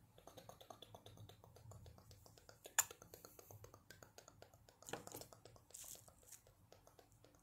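Rapid light clicks and taps of fingers handling a small object close to the microphone, several a second. There is one sharp click about three seconds in and a few louder taps around five to six seconds.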